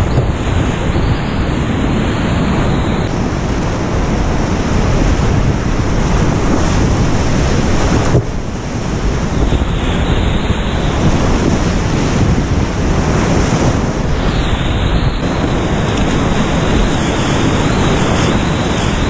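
Steady loud roar of whitewater rapids heard from a kayak running them, with water splashing close by. The noise dips briefly about eight seconds in.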